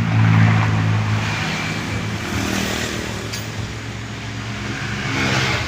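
A motor vehicle engine running, a steady low hum, with traffic noise swelling near the start and again near the end.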